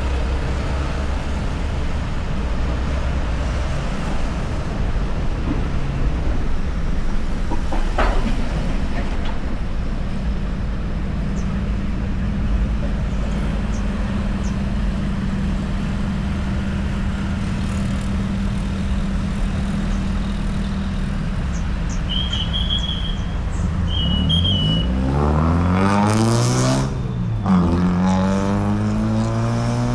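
Road traffic of cars and motorbikes: a steady rumble of engines and tyres, with one engine note holding steady for a while. Near the end a vehicle speeds up and passes close with a loud whoosh.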